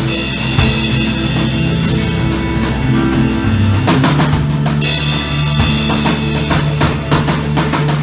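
Rock band playing live, the drum kit loudest with a busy run of hits over held low chords; the chord changes about halfway through.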